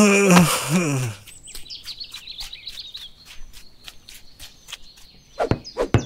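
A short voice-like call falling in pitch, then a run of sharp clicks, about four a second and louder near the end, over faint high bird-like chirping.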